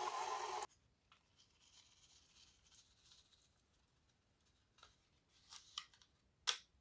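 KitchenAid stand mixer motor running with its beater in ground beef, stopping abruptly under a second in. Then faint rustling and a few sharp crinkles as a paper seasoning packet is handled, the loudest near the end.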